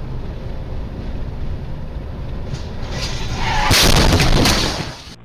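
Car crash heard from a dashcam car: steady road and engine rumble, then about three seconds in a loud, drawn-out crash of crunching, banging impacts lasting about a second and a half, which dies away just before the end.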